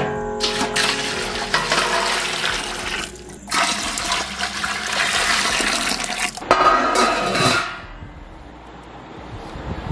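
Liquid poured and splashing into a metal vessel in two long rushes and a shorter third one, after a clank of metal at the start.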